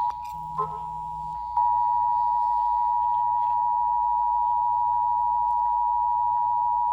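Emergency Alert System two-tone attention signal: two steady tones sounding together, with a dip in level for about the first second and a half. It announces an emergency alert, here a severe thunderstorm warning.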